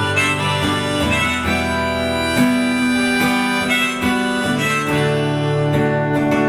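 Instrumental break of a live folk-pop song: a harmonica plays a melody of held notes over strummed acoustic guitar.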